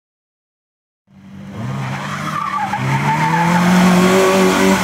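Silence for about the first second, then a Peugeot 106 rally car's engine revving hard as it takes a corner, rising in pitch, with the tyres squealing.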